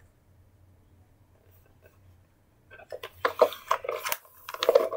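Near silence, then from just before halfway a run of short clicks, knocks and rustling as a plastic toy car is handled and a plush toy is pushed into its seat.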